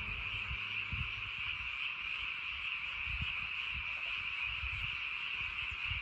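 Many frogs calling at once from flooded rice paddies: a dense, steady, unbroken chorus.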